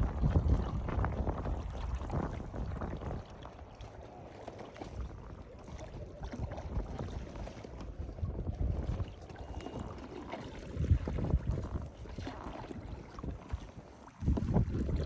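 Wind gusting across the microphone, a low rumbling rush that rises and falls, with a sudden jump in level near the end.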